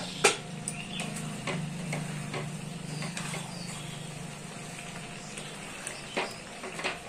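Spatula stirring chicken and potato curry in a metal pan, with irregular scrapes and knocks against the pan, the sharpest about a quarter second in, over a faint sizzle and a steady low hum.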